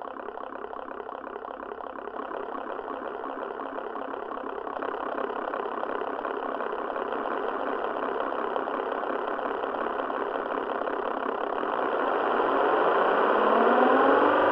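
Simulated sound of an Avro Lancaster's four Rolls-Royce Merlin V12 engines, built from recordings of a speaker setup that fires each cylinder, mixed with a fan heater for propeller noise. The engines run with a fast, rough firing pulse and grow steadily louder. Near the end they rise in pitch as they speed up toward takeoff revs.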